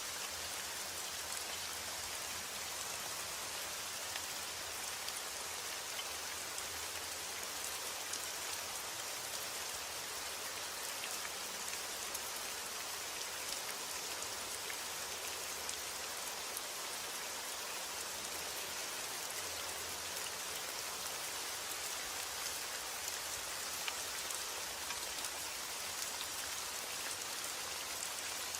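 Steady rain falling, an even hiss with many small sharp drop ticks on a surface.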